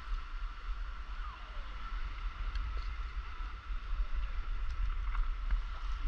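Wind rumbling on the microphone over faint splashes and drips from a paddleboard paddle working calm sea water.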